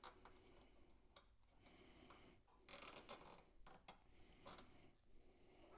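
Faint clicking and rustling of a nylon zip tie being pulled tight with needle-nose pliers, with a few louder scrapes about three seconds in and again near four and a half seconds.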